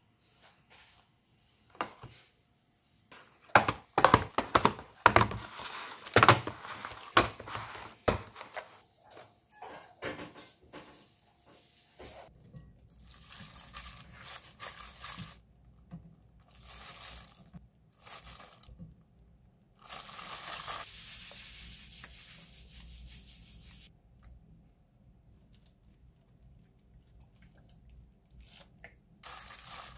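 A cardboard snack box being torn open and crinkled, with sharp tearing and crackling strongest a few seconds in. Later there is softer, intermittent plastic rustling as a plastic-gloved hand handles sliced pork in a glass bowl.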